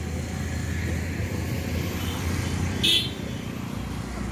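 Steady low rumble of road traffic, with one brief sharp high-pitched sound about three seconds in that stands out as the loudest moment.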